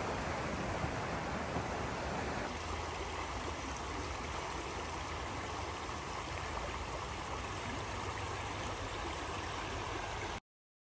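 Stream water rushing steadily over rocks and through shallow rapids. The water's sound changes character about two and a half seconds in and cuts off abruptly near the end.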